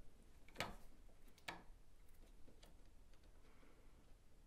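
Near silence with a few faint small clicks, two of them clearer about a second apart, as pliers push Micro Engineering rail joiners onto the model track's rail ends.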